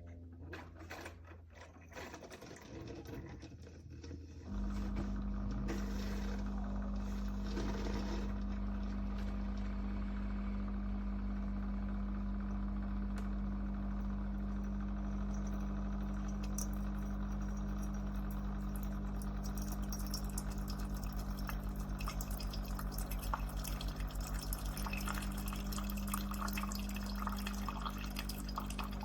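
Cuisinart single-serve coffee maker brewing: a steady pump hum starts about four and a half seconds in, with coffee trickling and dripping into the cup, growing more spattery near the end.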